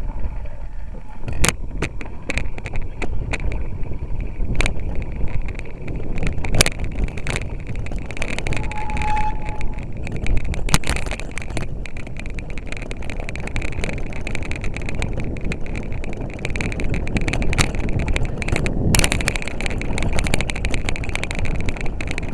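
Mountain bike rattling and rumbling fast down a rough grassy trail, with wind buffeting the microphone and repeated sharp knocks as the bike hits bumps. A brief squeal comes about nine seconds in.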